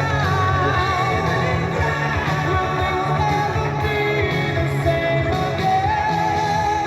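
Song playing: a sung melody over a steady bass line.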